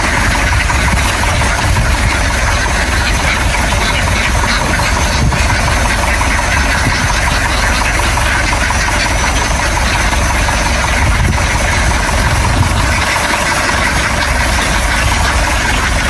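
An engine running steadily at an even speed, without pauses or changes.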